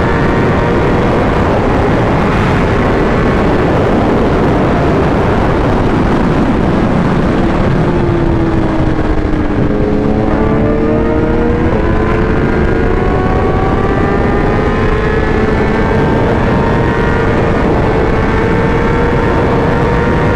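Superbike engine running at speed under heavy wind rush on the microphone. The engine note shifts about halfway through, then climbs gradually.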